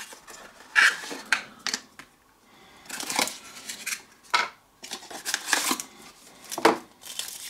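Small cardboard box and its folded card inner packaging being opened and pulled apart by hand: irregular rustles, scrapes and sharp snaps of card, the sharpest about two-thirds of the way through.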